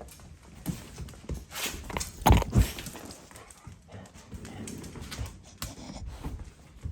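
Miniature golden retriever puppy moving about, with scattered taps and scuffles and two heavy thumps about two and a half seconds in.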